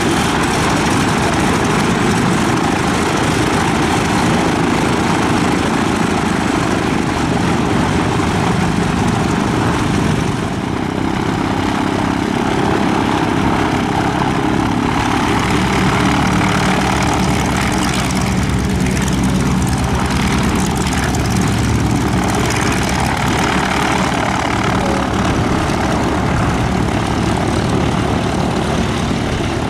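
Aircraft engine running steadily, a dense continuous noise that dips briefly about a third of the way in.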